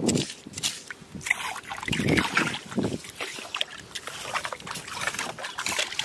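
Rubber boots wading through shallow water on a sandy beach, sloshing and splashing in an irregular series of steps.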